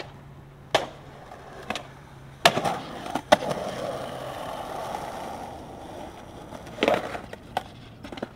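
Skateboard on concrete: scattered clacks of the board, two loud clacks about two and a half and three and a quarter seconds in, then the wheels rolling for a few seconds, and more clacks near the end.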